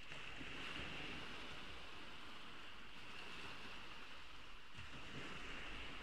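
Ocean waves breaking and washing on a beach: a steady rush of surf.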